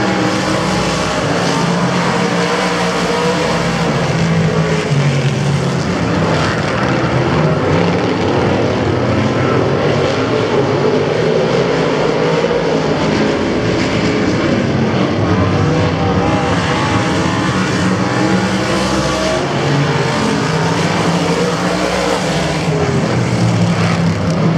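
A pack of small winged sprint cars racing on a dirt oval. Several high-revving engines run together at full throttle and rise and fall in pitch as the cars go through the turns and down the straight.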